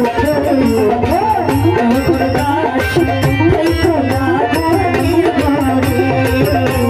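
A woman singing a Baul folk song into a microphone, amplified, with drum and rattling percussion playing a steady beat beneath her.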